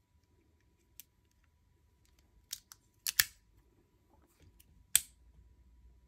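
Metal clicks and snaps of a folding multitool being handled, its pliers folded shut and a knife blade opened and locked. A few light clicks, then two sharp snaps about three and five seconds in.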